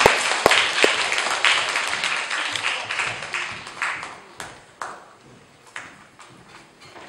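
Audience applauding, dying away over about four seconds to a few scattered claps.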